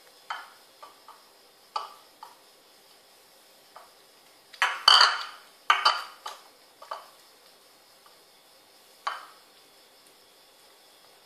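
A small ceramic food bowl knocking and scraping on a tiled floor as two kittens eat from it and shove it about. It comes as a few short clatters, with the loudest run about five seconds in.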